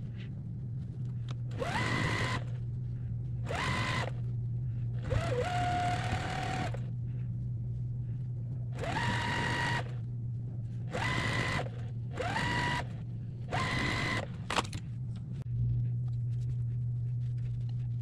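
Juki sewing machine stitching in about seven short stop-start bursts, the motor whining up in pitch at the start of each run. One slower, lower run comes about five seconds in.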